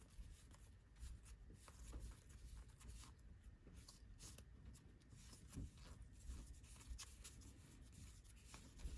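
Near silence with faint, scattered rustles and soft ticks of trading cards being handled and slid one behind another.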